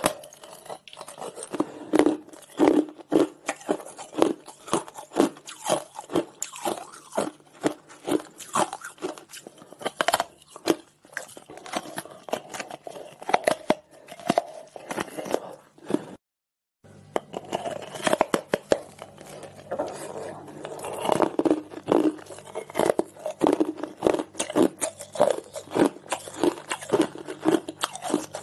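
Close-miked biting and chewing of hard ice moulded like an ear of corn: a fast, uneven run of sharp crunches and cracks, with a brief break of silence about halfway through.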